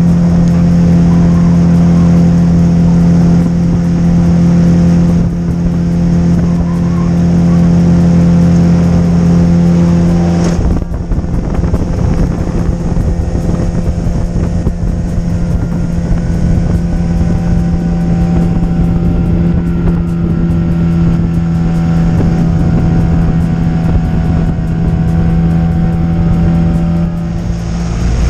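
Outboard motor of a small open boat running steadily at cruising speed on one even pitch, with wind and water noise; the sound turns rougher and noisier about ten seconds in.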